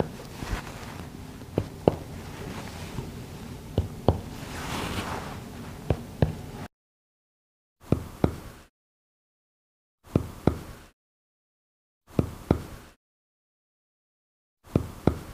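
Clinical chest percussion on a man's back: sharp finger-on-finger taps. In the first half they give a resonant note, the normal note over healthy lung. About halfway through come four separate pairs of taps with silence between, giving a dull percussion note of the kind heard over consolidated or collapsed lung.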